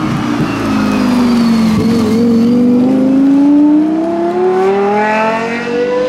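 Lexus LFA's 4.8-litre V10 accelerating hard: after a brief dip about two seconds in, the engine note climbs steadily in pitch for about four seconds as the car pulls away.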